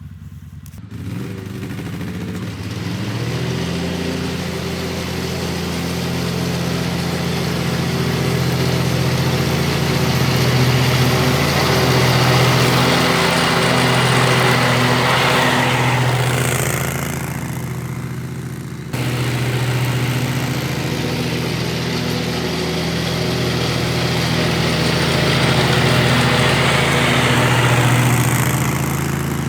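Dixie Chopper Silver Eagle zero-turn mower running under load, its engine and blade deck going steadily while it mows thick, tall grass. The sound builds over the first few seconds and jumps abruptly in level about two-thirds through.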